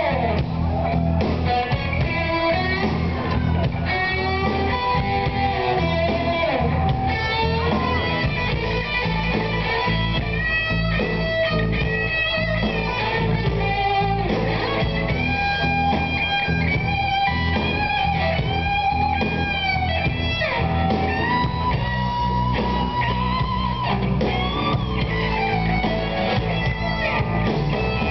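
Live rock band playing, with an electric guitar carrying a lead line of bent, held notes over bass and drums.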